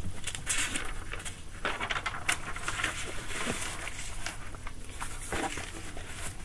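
Irregular rustling and scuffing with a scatter of short clicks, the handling noise of a person moving about and reaching.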